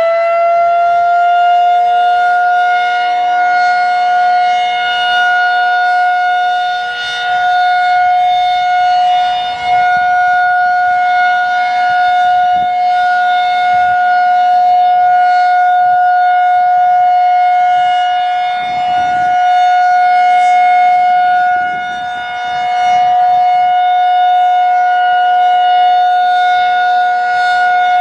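Federal Signal 2001-SRN outdoor warning siren sounding the steady full-alert tone. It finishes winding up to full pitch within the first second or two, then holds one loud, steady tone whose loudness dips now and then.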